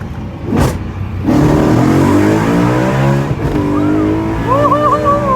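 BMW E93 M3's V8 accelerating hard, its exhaust running through a catless X-pipe with resonators into the stock mufflers. The note jumps up about a second in and climbs with the revs. It drops at a gear change about three seconds in, then climbs again.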